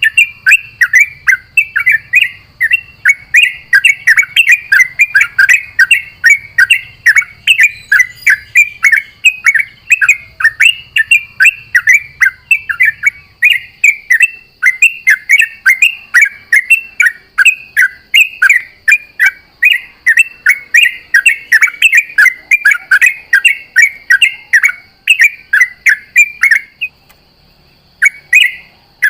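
Yellow-vented bulbul (trucukan) singing in a fast unbroken run of short, bright chattering notes, several a second. It pauses briefly near the end, then starts again.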